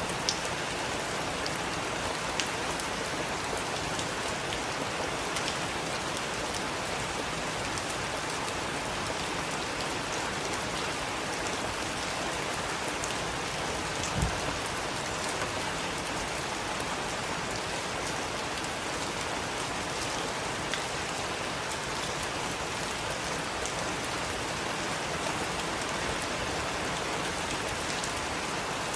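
Heavy rain falling steadily, with scattered sharp drop impacts and one louder knock about halfway through.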